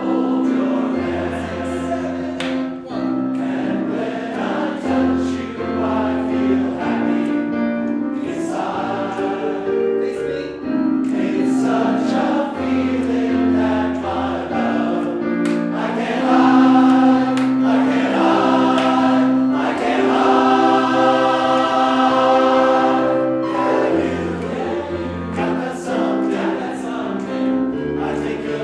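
A large men's chorus singing in harmony with piano accompaniment, held notes moving from chord to chord.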